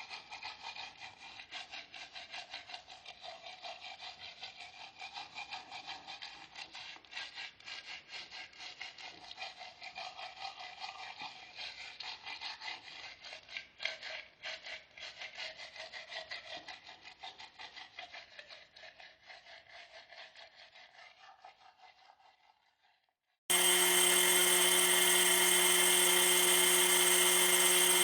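Handsaw cutting wood in quick back-and-forth strokes, about two a second, fading out near the end. A much louder steady hum at a fixed pitch then starts abruptly.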